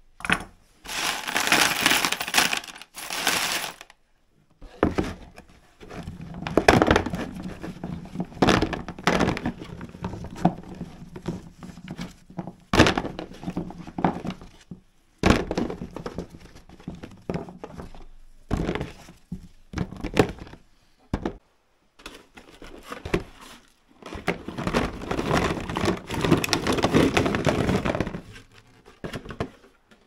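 Hands handling scrap power plugs and loose brass plug pins: a string of knocks, clicks and rattles, with longer spells of dense clatter near the start and again near the end.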